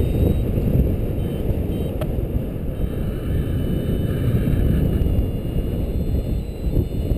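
Wind rushing over the microphone of a camera carried in paraglider flight: a steady low buffeting noise, with one faint click about two seconds in.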